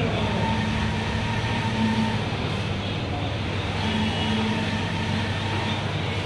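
Large-format solvent flex printer running: a steady machine hum, with the print-head carriage's motor whine coming and going as it sweeps back and forth across the banner.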